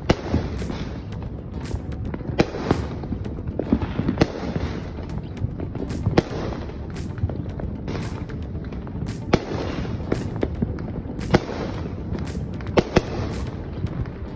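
Many fireworks going off at once: a continuous rumble and crackle of bursts, with sharp bangs standing out at irregular intervals.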